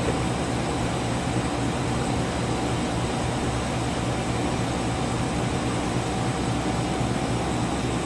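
Air-to-water pool heat pump running: its outdoor fan and compressor give a steady whir over a low hum. It is quiet for such a unit, reading about 60 to 69 dB on a meter at a metre.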